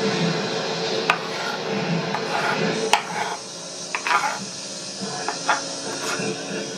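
Chef's knife knocking on a wooden cutting board in a few scattered sharp taps while dicing onion, with the blade scraping the diced onion across the board in the second half.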